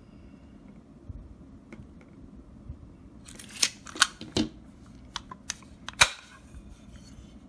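A Master Lock 5401D combination lock box being handled: a quick run of about a dozen sharp clicks and clacks over some three seconds, the loudest one near the end of the run.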